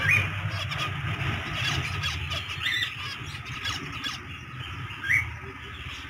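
A flock of zebra finches calling: constant chattering with three louder short rising calls, about two and a half seconds apart.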